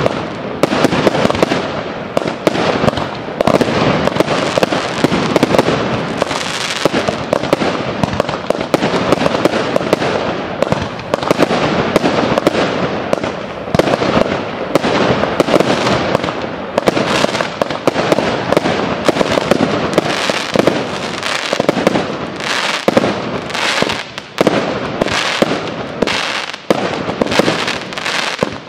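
Fireworks display: a continuous barrage of aerial shell bursts, bangs following one another several times a second without a break, mixed with crackling.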